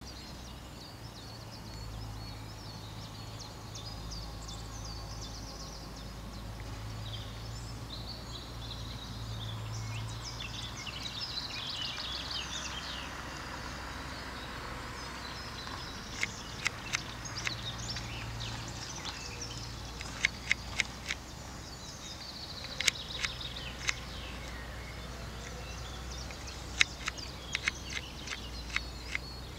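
Small birds chirping and twittering over a low, steady hum. In the second half a scatter of sharp clicks comes in short clusters.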